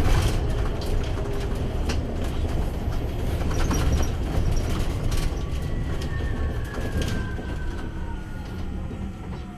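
Heuliez GX337 all-electric bus riding, heard from inside at the front: low road rumble with scattered clicks and knocks. About halfway through, the electric drive's whine falls steadily in pitch as the bus slows.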